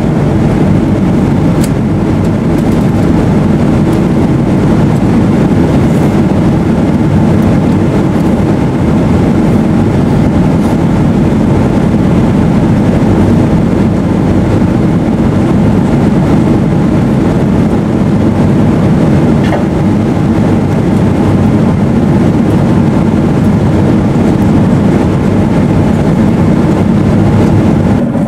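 Steady engine and airflow noise inside the cabin of a Boeing 777-200ER powered by Rolls-Royce Trent 895 engines, heard as an even low rumble that holds its level throughout.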